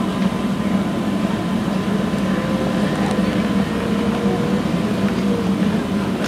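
Translohr rubber-tyred tram on Michelin tyres running slowly past, over a steady low hum. A faint whine bends gently in pitch through the middle.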